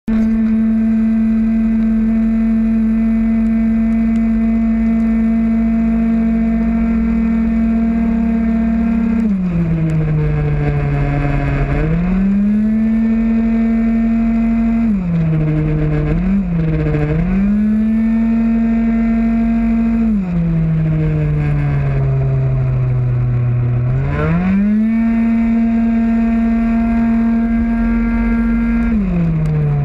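Engine of a 50cc two-stroke racing scooter, heard onboard at full throttle. It holds one high, steady pitch on the straights, drops sharply each time the throttle is closed for a corner (about nine seconds in, twice in quick succession around the middle, again past twenty seconds and near the end), then climbs back to the same high note as the rider accelerates out.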